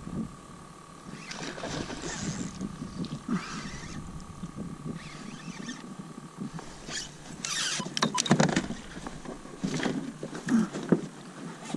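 Water splashing and sloshing around a plastic fishing kayak while a hooked fish is played on a spinning rod, with sharp clicks and knocks of the rod and reel being handled against the hull about eight seconds in, over wind rumble on the microphone.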